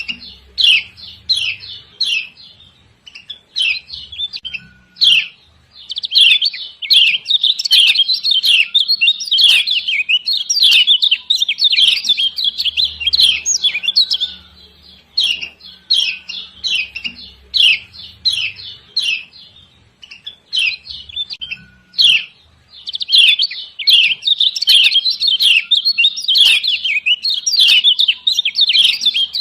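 Kecial kuning (Lombok yellow white-eye) giving fast runs of sharp 'ciak ciak' chirps, the female call that fanciers play to provoke a quiet male into singing. The chirps come in dense bursts with short pauses between them.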